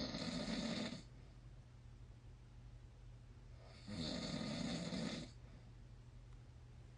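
A man snoring: two loud snores about four seconds apart, each lasting about a second, with quieter gaps between.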